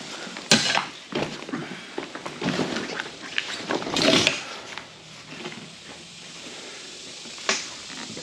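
Mosko Moto Reckless 80 soft luggage being lifted onto a motorcycle seat and settled, with rustling and shuffling of nylon bags and straps. A sharp knock comes about half a second in, and a single click near the end.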